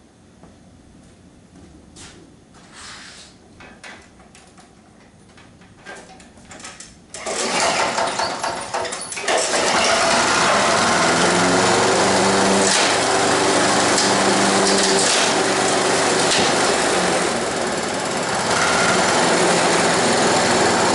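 Honda HR194 push mower's four-stroke engine being pull-started on a freshly cleaned carburetor. It catches about seven seconds in, runs unevenly for a couple of seconds, then settles into a steady run without dying.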